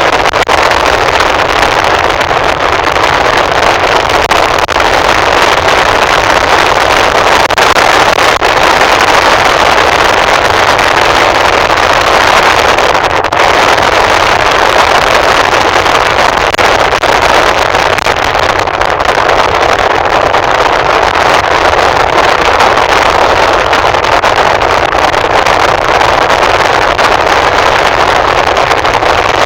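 Steady road and wind noise of a vehicle travelling along a road, an even loud rush without change.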